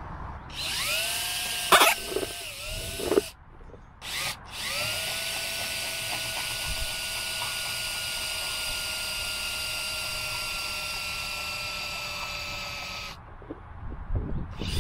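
Electric drill with a spade bit boring a hole through the base of a plastic mixing bowl. The motor spins up about half a second in, with two loud clacks, stops, gives a short burst, then runs steadily for about eight seconds, its pitch sagging slightly, before cutting off.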